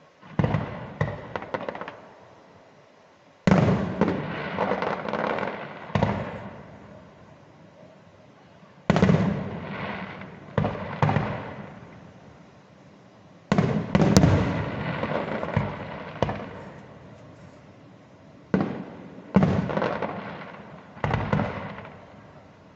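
Fireworks display: aerial shells bursting in volleys every few seconds. Each volley opens with a sudden loud bang, followed by a run of sharp crackles that die away.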